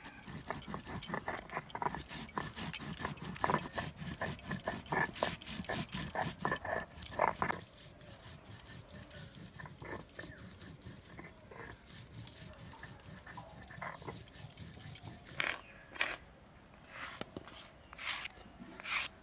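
Cumin seeds being crushed and ground with a stone roller on a grooved stone slab (shil-nora). Fast, gritty rubbing and crunching strokes that go quieter about halfway through. A few separate scrapes come near the end as the paste is gathered up.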